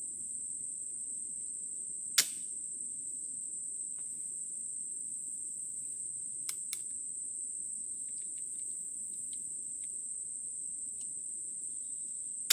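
Pedersoli .45 flintlock dueling pistol's lock snapping once, about two seconds in: the flint strikes the frizzen but gives no good spark, so the pan doesn't ignite. Two quieter clicks follow a few seconds later. A steady high-pitched insect drone runs underneath.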